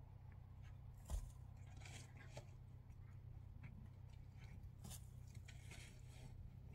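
Near silence: a low steady hum with faint scattered scrapes and clicks, and one soft thump about a second in.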